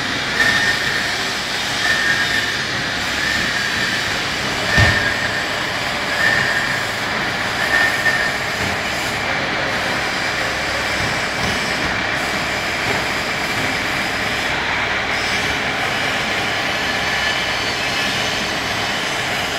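Steady, loud machinery noise, with short high squeaks of one pitch about once a second for the first eight seconds and a single sharp knock about five seconds in.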